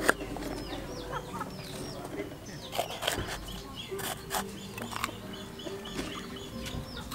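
A kitchen knife cutting through a green bell pepper and striking a wooden chopping board several times, in sharp separate knocks. Chickens cluck and small birds chirp throughout.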